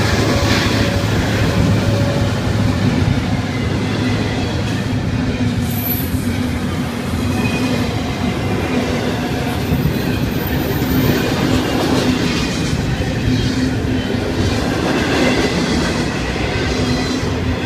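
Florida East Coast Railway intermodal freight train passing close by: steel wheels running over the rails under double-stack container cars, a steady loud rumble.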